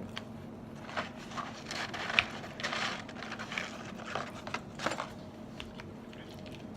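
Eating and food-handling noises: a scatter of short clicks, crackles and scrapes from food, packaging and utensils, the sharpest about two seconds in, over a faint steady hum.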